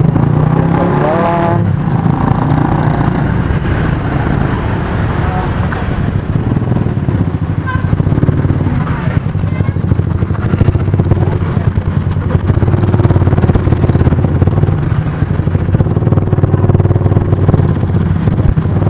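Motor scooter engine running at low speed in slow traffic, with other motorbikes passing close around and wind rumble on the microphone.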